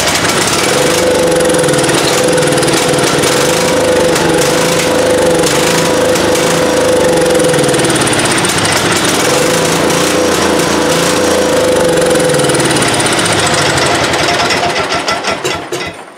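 Riding mower's single-cylinder flathead engine firing up at once and running steadily on sprayed starting fluid, then winding down and stopping near the end. It runs on the fluid because the carburetor is faulty, which the owner takes for a stuck float.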